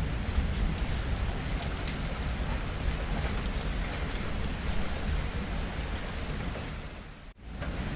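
Steady heavy rain falling on surfaces, with a low rumble of distant thunder underneath. About seven seconds in, the sound briefly drops out almost to nothing and then comes straight back.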